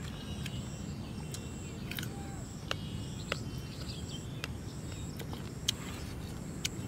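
Rural outdoor ambience: a steady low rumble with faint bird chirps and an on-off high insect tone. A few sharp clicks and smacks of mouth noise come from eating the spicy mashed guava, the loudest about two, three and six seconds in.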